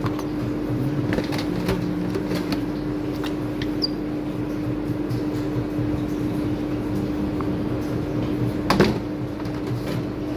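Steady machine hum in a kitchen, with scattered light clicks and knocks from handling food and utensils and one louder knock near the end.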